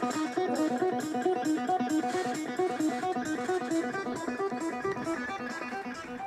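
Music: a fast picked guitar riff repeating the same run of notes over and over.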